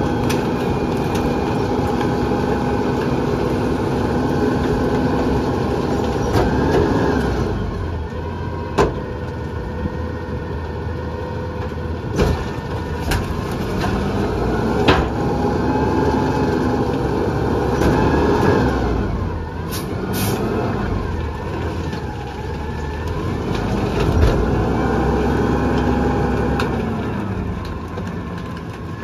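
Mack LR rear-loader garbage truck with a McNeilus body running, its engine revving up and settling back several times as the packer works. Sharp bangs and cracks from bulk trash being loaded and crushed in the hopper.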